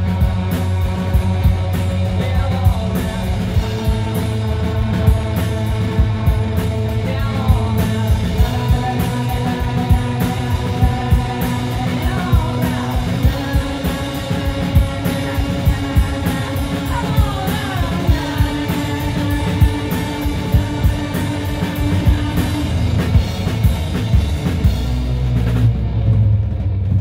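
Live rock band playing: drums, electric guitar, bass guitar and singing, with sliding guitar notes every few seconds. Near the end the drums and cymbals stop and a low note rings on.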